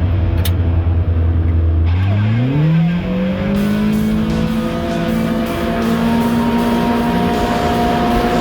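A vehicle engine running steadily, then rising in pitch as it speeds up about two seconds in, and holding at the higher speed.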